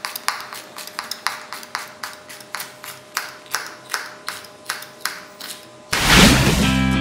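Knife chopping a red pepper on a cutting board in even strokes, about three a second. About six seconds in, a loud whoosh cuts in and guitar music begins.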